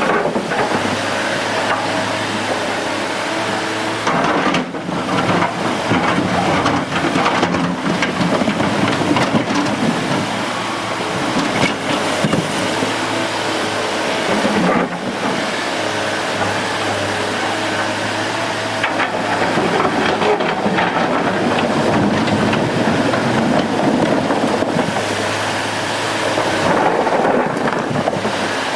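Excavator diesel engine running steadily, with a rushing noise laid over it.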